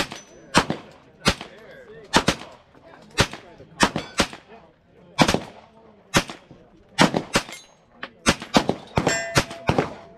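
Rifle and pistol gunfire from shooters on a range line: single shots at uneven spacing, about sixteen in ten seconds, sometimes two or three in quick succession, each crack trailing off in a short echo.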